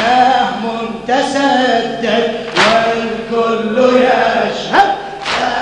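Crowd of men chanting a Shia mourning lament (latmiyya) in unison, with sharp slaps of their chest-beating landing together about every second and a bit.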